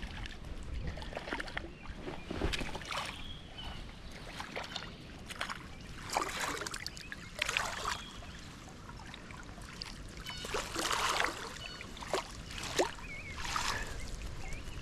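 Water splashing and sloshing in irregular bursts, one every second or so.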